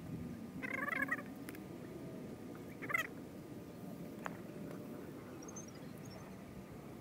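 Two short animal calls, one about a second in and a briefer one near three seconds, over a quiet background.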